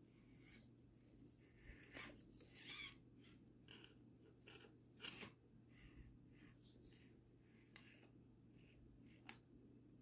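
Faint sounds of an Axial SCX24 Deadbolt 1/24-scale RC crawler working its way over concrete blocks: an irregular run of short scrapes and clicks as it crawls over the stone, over a low steady hum.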